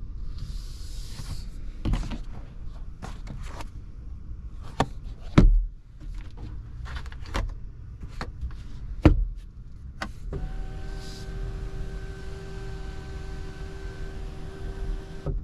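Clicks and knocks of a car's sun visor and its vanity mirror cover being handled, with two louder thumps. About ten seconds in, a small electric motor in the car starts and runs with a steady whine for about five seconds, then stops.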